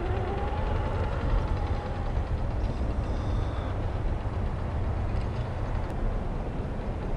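Electric motor and gear whine of a 1/10-scale Axial SCX10 III RC crawler driving through sand, rising and falling in pitch for the first couple of seconds, over a steady low rumble.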